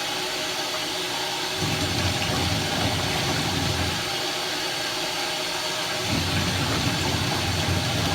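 Water running steadily from a bath tap or sprayer while a dog is rinsed, with a low rumble underneath that drops out twice.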